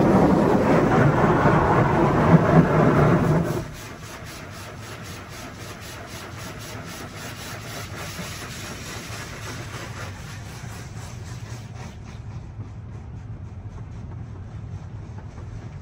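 High-pressure water jets of a HydroSpray Rainmaker touch-free car wash hitting the car body, heard from inside the cabin with a fast regular flutter, then cutting off suddenly about four seconds in. A quieter steady hiss and low hum of the wash machine carries on after the jets stop.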